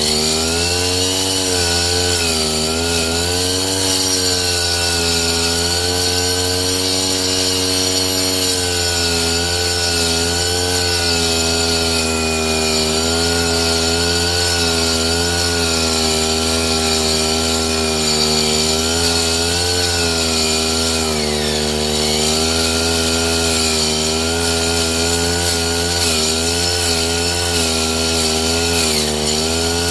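Brush cutter engine running continuously, driving a circular blade that rips thin wooden strips, its pitch sagging and recovering over and over as the wood loads the blade.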